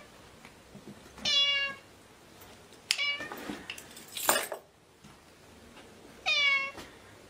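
Kitten meowing three times, each a short high call that falls in pitch. About four seconds in, a brief burst of scratchy noise, the loudest moment.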